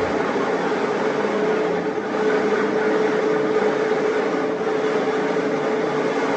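Edco 2EC15B dual-head electric floor grinder running steadily as its grinding stones work a concrete slab: a constant hum over a rough grinding noise, dipping briefly about two seconds in.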